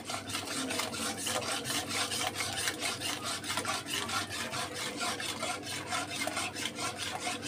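Metal spoon scraping quickly round a heavy-bottomed metal kadhai in fast, even strokes, stirring powdered sugar into a thin cornflour mixture.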